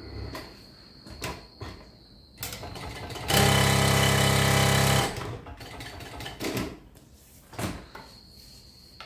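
Industrial walking foot sewing machine (PROSEW PS-1933B) stitching a short fast run of about a second and a half, a test seam in thick thread. Scattered clicks and knocks come before and after the run.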